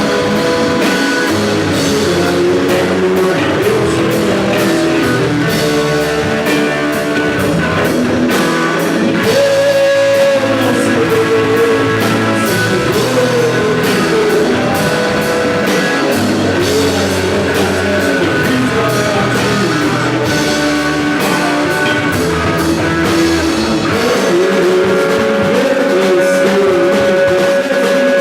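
Live rock band playing: guitars over a drum kit with steady cymbal strokes, and a melody line that rises and falls in the middle and near the end.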